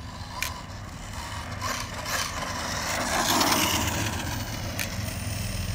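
Arrma Outcast 6S RC car running on asphalt, its drivetrain making a rough mechanical noise that grows to its loudest a little past the middle, with a couple of sharp clicks. The owner suspects a failing differential, most likely the center diff, or the planetary gears.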